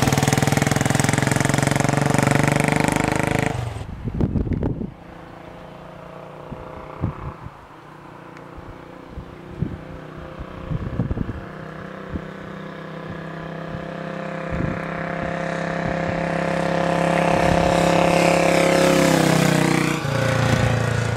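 A 1939 Excelsior Manxman 350cc single-cylinder motorcycle running through a new hand-bent header and chrome silencer as it rides past. The engine is loud at first and cuts off abruptly about four seconds in. It then returns faint, from a distance, with a few brief thumps, grows steadily louder, and passes close with a falling pitch near the end.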